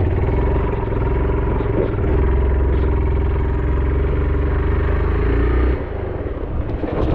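Motorcycle engine running while riding, with a steady low rumble and road noise. The engine eases off about six seconds in.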